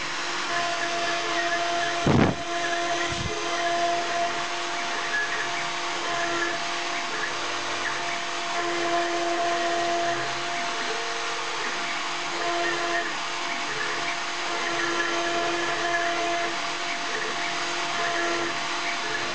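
Small CNC router's rotary-tool spindle running at high speed with a steady whine as the bit cuts an engraved outline into a wooden board. Two low thumps come about two and three seconds in.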